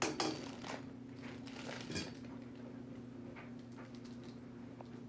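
Plastic packaging crinkling and rustling, with a few light clicks, as bagged shelf parts and plastic-wrapped metal poles are handled. The sharpest crackle comes right at the start and another about two seconds in, over a steady low hum.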